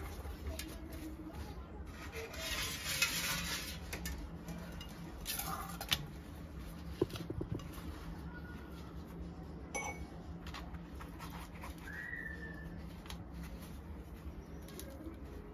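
A cotton cloth rustling and rubbing as it is unfolded and pulled off a pressed block of homemade paneer, with a few light clicks of steelware.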